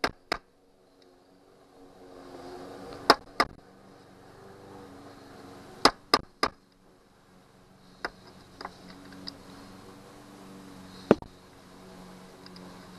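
Hand tools striking metal while working a seized fuel-connector stud on a Johnson 90 hp outboard: about nine sharp taps and clinks in small groups of two or three, over a faint steady hum.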